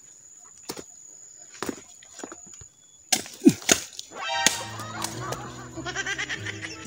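Bolo (machete) blows chopping into husked coconuts to split them for copra: scattered light knocks in the first half, then several sharp chops from a little past the middle. Background music comes in over the chopping near the end.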